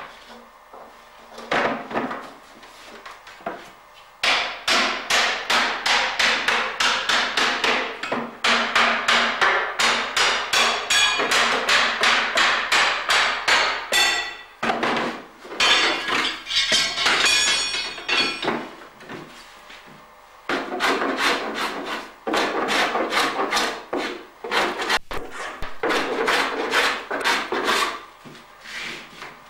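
A cooper's hammer striking a wooden herring barrel in quick, even runs of about three or four blows a second, driving the hoops down onto the staves. The blows pause briefly a few times and stop near the end.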